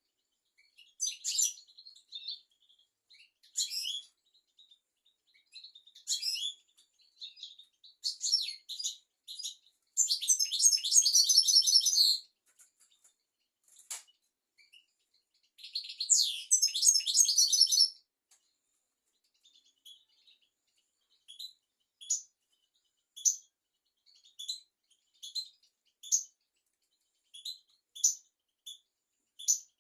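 European goldfinch singing: twittering phrases, with two longer rapid trills about ten and sixteen seconds in, then a string of brief separate notes toward the end. A single faint click comes about halfway through.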